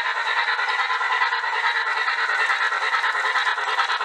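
HO-scale Precision Craft Models Reading T-1 steam locomotive model running past on its track under DC power, its motor and gear drive making a really loud, steady whir with a fast rattle in it. Its sound decoder is not active on DC, so this is the bare mechanism.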